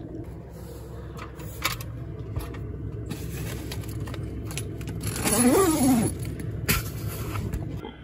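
Steady low hum of a cheap Chinese 2 kW diesel air heater running, with a few soft clicks. About five seconds in, a person gives a long, drawn-out groan while stretching awake, its pitch rising then falling; this groan is the loudest sound.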